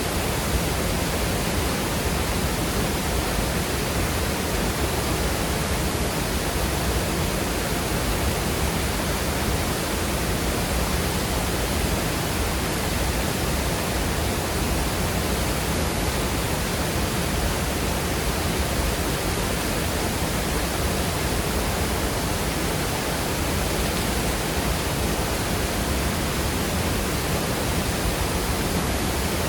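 Waterfall pouring into a fast-moving creek, water rushing over rocks in a steady, even rush.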